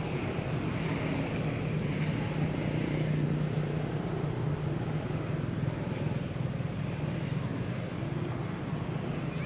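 Steady low engine rumble, a little louder about three seconds in.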